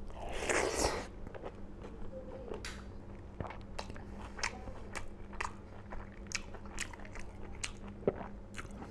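Close-up mouth sounds of a man eating smoked pork curry with rice by hand: a loud mouthful about half a second in, then chewing with many short, irregular smacks.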